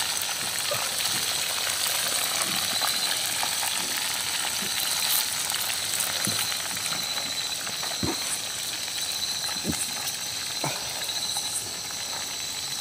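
Fish frying in a skillet on a grill grate over campfire embers: a steady sizzle, with a few faint ticks.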